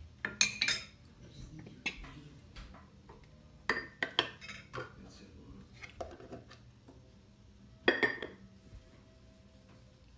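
Spatula and dishes clinking and knocking against the metal mixing bowl of a Thermomix: a scatter of separate strikes, the loudest about half a second in and again near eight seconds.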